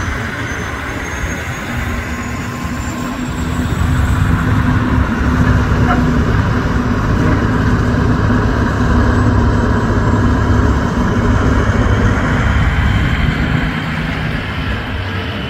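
Diesel engines of big-rig semi trucks with tall straight exhaust stacks running as the trucks roll slowly past at low speed, one after another. The engine sound grows louder about four seconds in and stays steady.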